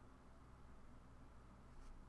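Near silence: room tone with a faint low hum and one faint click near the end.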